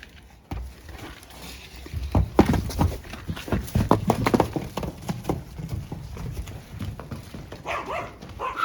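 Horses' hooves clip-clopping in a quick, uneven run of knocks as the horses walk out. Near the end a dog starts yapping and whining.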